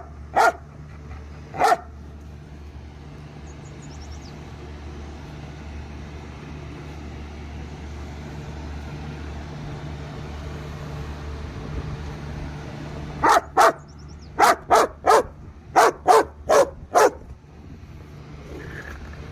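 German Shepherd and Maremma sheepdog cross barking: two barks in the first couple of seconds, then a quick run of about nine barks later on. A steady low hum runs underneath.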